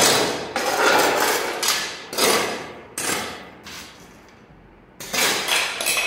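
Hammer with a long wooden handle repeatedly striking and smashing concrete pieces on a concrete floor: a run of sharp, loud blows that ring briefly, with a pause of over a second in the middle.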